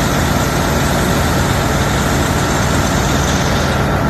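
Detroit Diesel Series 60 inline-six diesel truck engine running steadily at idle, loud and even, on a freshly replaced turbocharger. A high hiss above it thins out near the end.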